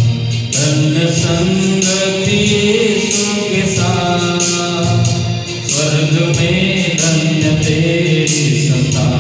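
A man singing a Christian worship song into a microphone, holding long notes over an instrumental backing with a steady beat of about one stroke a second.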